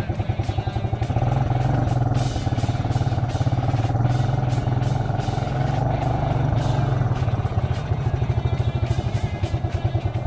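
ATV engine running steadily under throttle as the quad drives into a shallow creek, with water splashing around it. The engine note steps up slightly about a second in.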